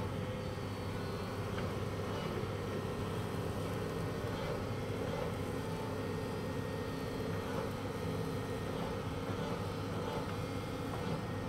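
Volvo excavator's diesel engine running steadily under load while the tilted bucket pours out gravel.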